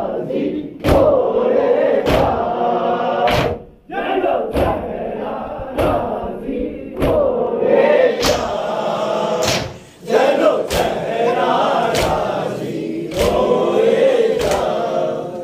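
A group of men chanting a nauha, a mourning lament, in unison while beating their chests together in time (matam). A sharp slap lands about every 1.2 seconds under the singing.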